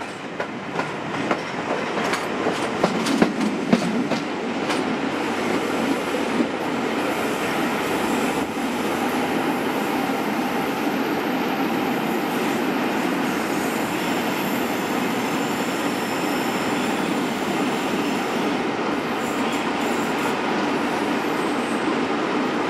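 Passenger train hauled by two Class 67 diesel locomotives, heard from a coach window as it runs round a curve: wheels clicking over rail joints and points for the first few seconds, then a steady rumble, with a faint high wheel squeal in the second half.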